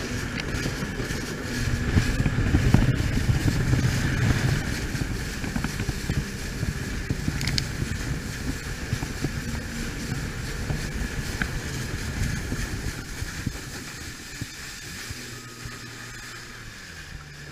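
Yamaha WaveRunner personal watercraft running across open water: engine drone mixed with the rush of water and spray along the hull. It is loudest a few seconds in, then gradually eases off to a quieter, steadier engine hum over the last few seconds.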